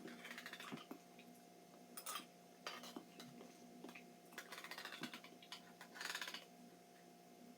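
Faint, scattered clinks and short scrapes of an eating utensil against a can or dish of canned pears, over a steady low room hum.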